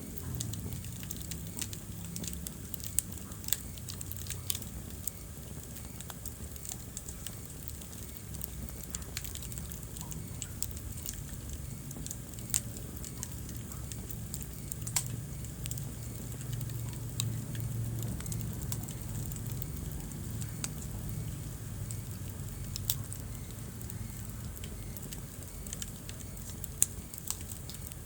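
Wood fire burning in a fireplace: irregular crackles and sharp pops, a few standing out loudly, over a low steady rumble of the flames.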